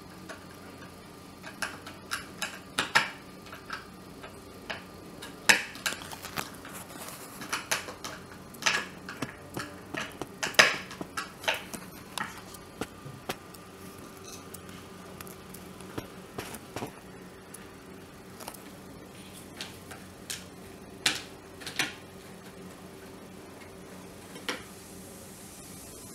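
Irregular clicks and taps of a screwdriver driving screws into the plastic top cover of a dry iron, with hard plastic parts knocking as they are handled. The clicks come thickest in the first half and thin out, with a few more near the end.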